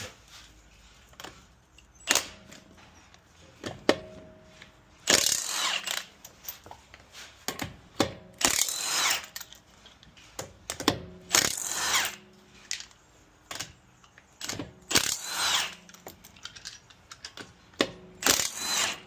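Power tool run in five short bursts of about a second each, with small clicks and knocks of tools between.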